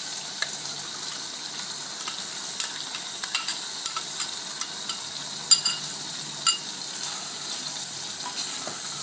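Mutton masala sizzling in hot oil as a green chilli and date paste goes in and is stirred, with a spoon clicking against the pot now and then.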